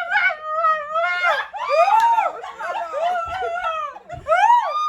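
A person's high-pitched wailing squeals, a string of cries each rising and falling in pitch, in reaction to the burn of extra-spicy noodles.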